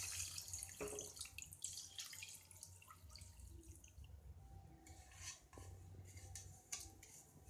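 The last of the water poured into a cooking pot of rice and chicken trails off into drips, with a few light clinks of cookware. The sound fades over the first second or so, then leaves only scattered small ticks.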